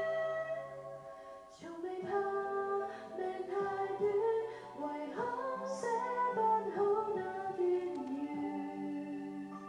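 A female voice singing a melody over held notes of an instrumental accompaniment.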